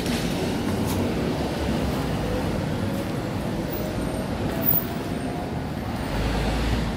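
City street traffic: a steady rumble of vehicles running and passing, with a heavier low rumble near the end.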